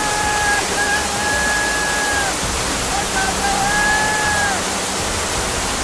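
Floodwater torrent rushing in a steady, loud roar. A high held tone sounds over it twice, each time trailing off at its end.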